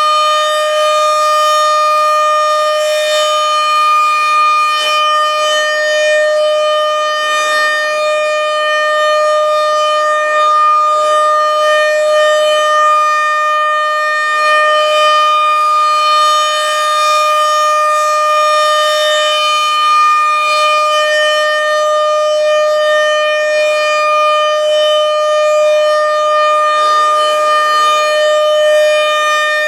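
RM-130 outdoor warning siren sounding a steady alert tone: one held pitch with strong overtones, its loudness swelling and fading gently, as in a routine siren test.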